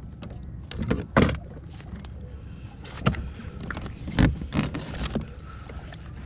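Half a dozen sharp knocks and bumps against a fishing kayak as a fish is handled aboard, over a low rumble of wind and water.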